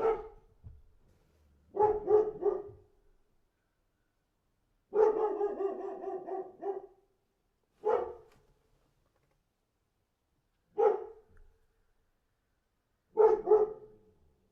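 A dog barking in separate bouts with dead silence between them: single barks, quick runs of two or three, and one longer run of barks lasting about two seconds.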